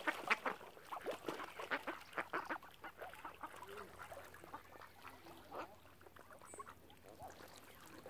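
A group of ducks quacking in many short overlapping calls, busy at first and thinning out to scattered calls in the second half.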